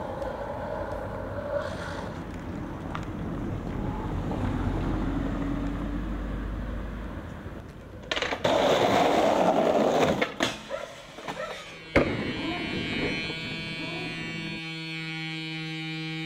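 Skateboard wheels rolling over street asphalt with a low rumble. About eight seconds in comes a louder rush of scraping noise, followed by knocks and a sharp clack of the board near twelve seconds. Music with steady held notes starts near the end.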